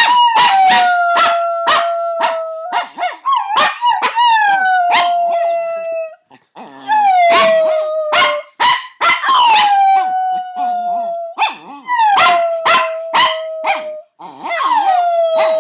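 A dog howling over and over, about six long notes that each start high, slide down and are held for a second or two, mixed with many short sharp sounds in between.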